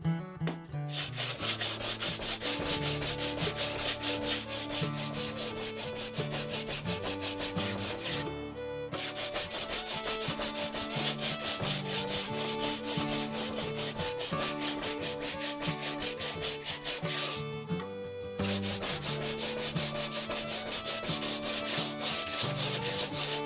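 Hand sanding block rubbed rapidly back and forth along split-bamboo fly-rod strips, sanding the enamel off the bamboo. Quick, even strokes, stopping briefly twice, about 8 and 17 seconds in.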